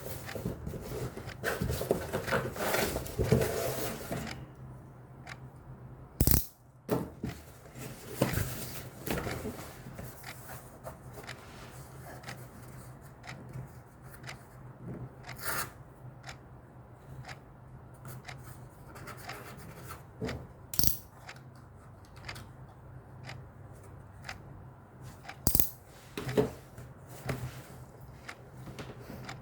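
Packaging being handled: rustling and rubbing for the first few seconds, then scattered sharp clicks and knocks, as of items and wrappers being picked up and set down.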